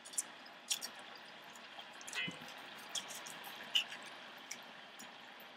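Faint clicks and scrapes of a knife and fork carving a roast chicken in a cast iron skillet, a handful of scattered taps over a low steady hiss.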